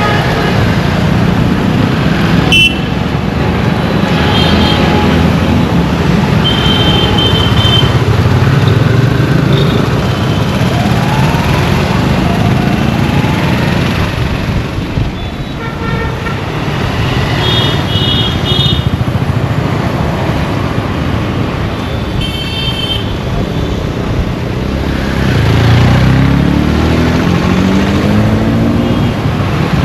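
Road traffic: a steady, deep rumble of engines and tyres, with short horn toots several times. Near the end an engine revs up with a rising pitch as a vehicle pulls away.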